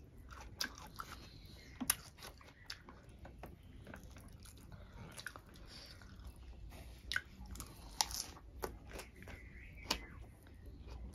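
People chewing and biting a hand-eaten meal of fried climbing perch and rice, with irregular sharp crunches and clicks.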